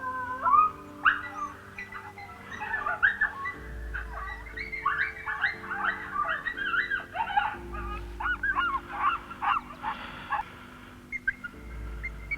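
Electronic predator caller playing recorded coyote pup whines and submissive yelps: many short, high squeals rising and falling in quick runs, used to lure coyotes in.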